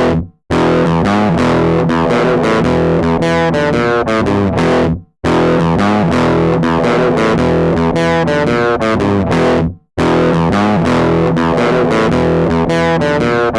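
Background rock music: distorted electric guitar over bass, loud and steady, breaking off abruptly for a moment about every five seconds.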